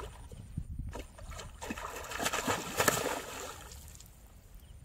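A hooked rohu thrashing and splashing at the water surface while held on a pole rod, loudest in the middle for about two seconds, then dying away.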